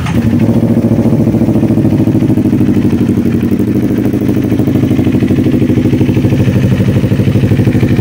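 CF Moto 400NK's 400cc parallel-twin engine idling through a new M4 aftermarket muffler, a steady, even exhaust note with a fast regular pulse. It rises in level at the start, then holds steady.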